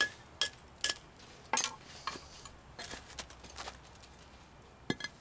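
A brick hammer striking and chipping the edge of a man-made stone step block to trim it to size. There are about eight sharp, irregularly spaced blows, several with a short metallic ring.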